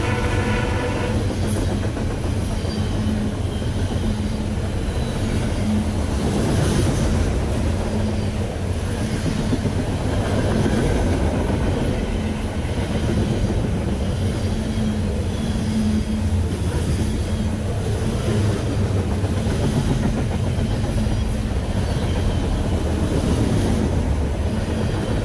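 Freight train of double-stack container well cars rolling past close by: a steady rumble of steel wheels on rail, with repeated clacks as the wheels cross rail joints.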